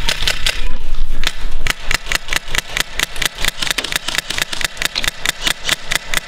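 Airsoft rifle firing on full auto: a rapid, even rattle of shots, burst after burst.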